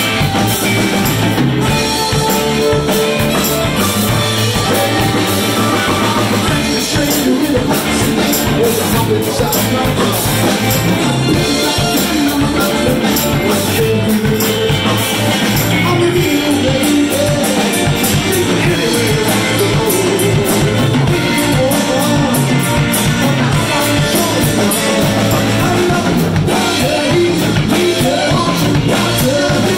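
Live rock band playing: a man's lead vocals over electric guitar, bass guitar and drum kit, loud and steady throughout.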